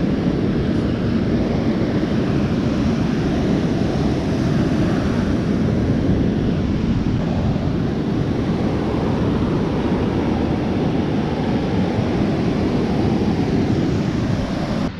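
Steady rushing roar of ocean surf on the beach with wind buffeting the microphone, the low rumble strongest.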